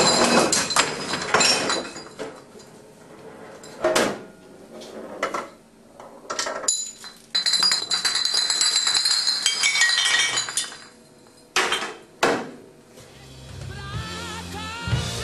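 Glass beer bottles toppling like dominoes, clinking and knocking against one another in a string of hits, with high glassy ringing between them. Music comes in near the end.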